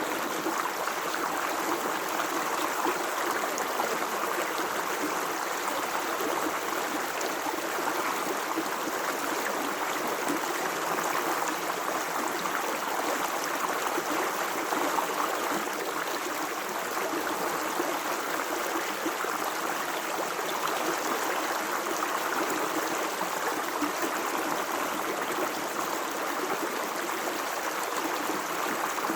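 Stream of water flowing steadily over rocks, a constant babbling rush.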